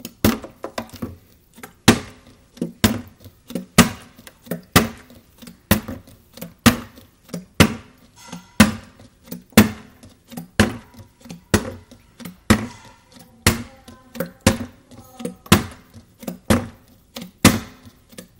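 Small, partly filled plastic water bottle being flipped again and again onto a stone countertop: a sharp thunk each time it comes down, about once a second, with lighter clicks and knocks as it is caught and set up between flips.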